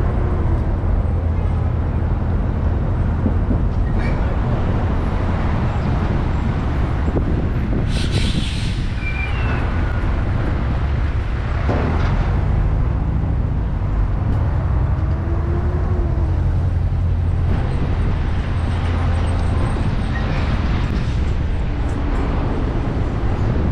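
Road and engine noise from driving in traffic behind heavy trucks: a steady low rumble, with a short hiss about eight seconds in.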